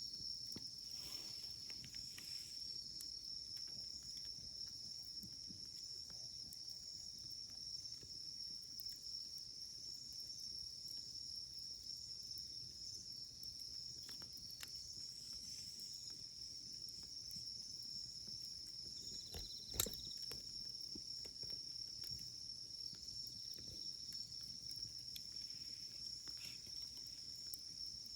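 Wood campfire crackling softly with scattered small pops and one sharper pop about 20 seconds in, over a steady high-pitched insect trill.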